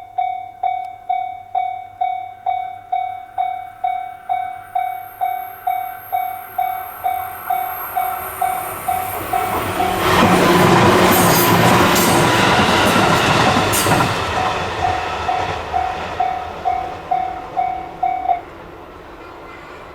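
Japanese level-crossing warning bell ringing about twice a second while a train passes over the crossing. The wheels and rails make a loud rush of noise from about ten to fourteen seconds in. The bell stops abruptly near the end.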